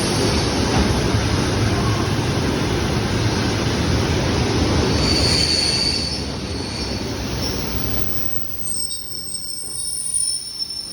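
ED4M electric multiple unit running on the track with loud, steady rail noise that fades over the last few seconds. Thin, high wheel squeals sound from about halfway through and stand out near the end.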